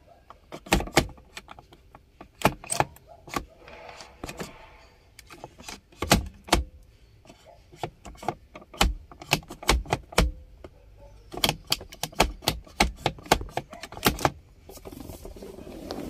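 Sharp metallic clicks and rattles in irregular clusters from the automatic transmission shifter assembly being worked by hand, its linkage just secured with copper wire after it had come loose.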